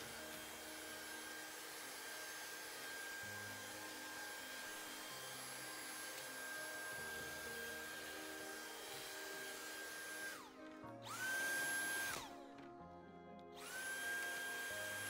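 A small appliance's electric motor running with a steady high whine, switched off and on twice near the end, its pitch falling as it spins down and rising as it spins back up. Soft background music plays underneath.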